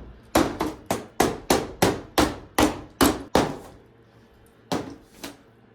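A rapid series of hard blows, about three a second for some three seconds, then a pause and two more strikes, as a TV set is beaten.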